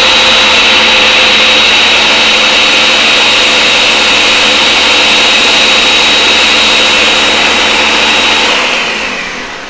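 Countertop blender running steadily as it beats three raw eggs, then switched off about a second before the end, its whine falling as the motor winds down.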